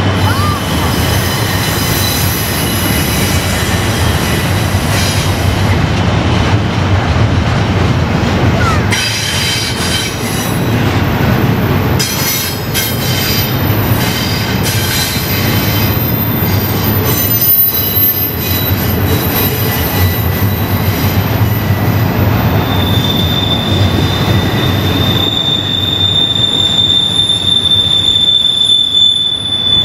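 Train rolling past with its steel wheels squealing against the rails on the tight Horseshoe Curve: a steady rumble under high-pitched squeals that come and go. One long, loud squeal starts about two-thirds of the way through and holds.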